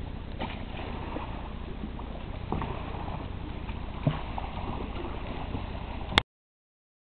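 Kayak paddling on a river: paddle strokes and light water splashing with a few small knocks over a steady low rumble. The sound cuts off with a sharp click near the end.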